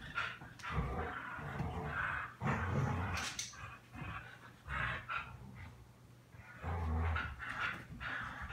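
Two dogs, a golden retriever and a black-and-white dog, growling in play as they tug a toy between them, in several rough bursts with short pauses.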